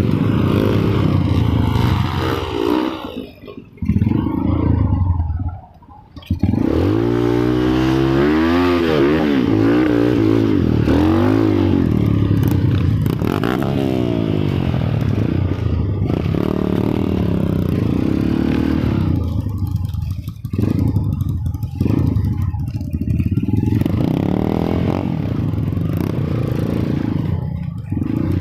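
An engine revving up and down repeatedly, its pitch rising and falling, with some rattle; it comes in short bursts at first and then runs continuously from about six seconds in.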